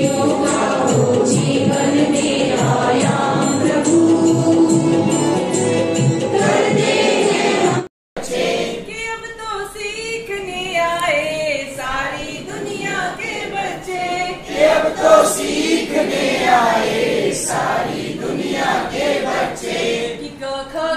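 A group of adults singing together in Hindi, with folded hands, as a group prayer song. About eight seconds in the sound cuts out for a moment, then the group singing resumes, with pitch rising and falling phrase by phrase.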